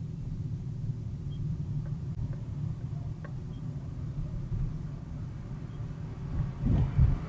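Low, steady rumble of a car's engine and tyres heard from inside the cabin as it drives slowly and gathers speed, with a couple of heavier low thumps near the end.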